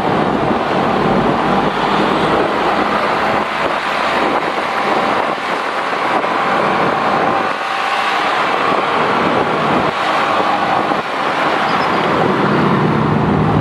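Riding a Yamaha Xabre 150 motorcycle through slow road traffic: steady wind and road noise on the bike-mounted camera's microphone, mixed with the engines of the motorcycle and the surrounding traffic.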